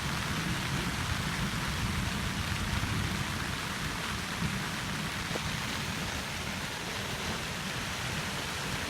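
Heavy rain pouring steadily during a thunderstorm, with a low rumble of thunder underneath.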